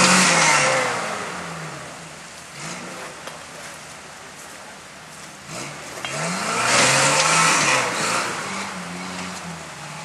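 Rock-crawling buggy's engine revving in bursts as it climbs over rock ledges. It is loud at first, eases off, then revs hard again about six seconds in.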